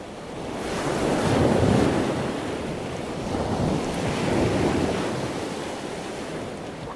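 Rushing, surf-like water noise that swells and eases twice.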